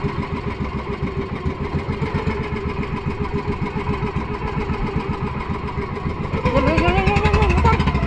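Bangka (small fishing boat) engine running with a fast, even putter. About six seconds in it gets louder and its pitch rises as it speeds up.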